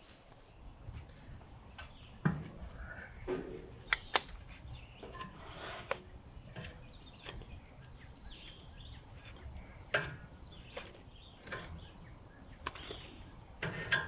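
Metal tongs clicking and scraping against a kamado grill's grate as chicken wings are picked up, with a few sharp clicks scattered through.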